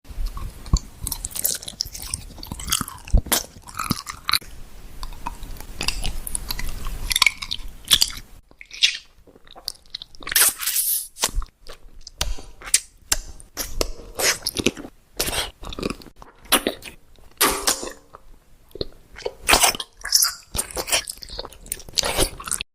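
A person biting and chewing papaya close to the microphone: a string of irregular short smacks and clicks of the mouth and the fruit.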